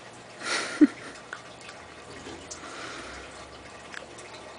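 A rat terrier licking and chewing a treat off the carpet: soft wet smacking and lapping, with a few scattered sharp clicks.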